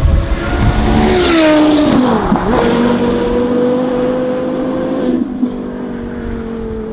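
Porsche Carrera GT's high-pitched V10 through a Kreissieg straight-pipe exhaust at high revs. The revs climb, dip sharply and pick straight back up about two seconds in, then hold a steady note before easing slightly lower after about five seconds.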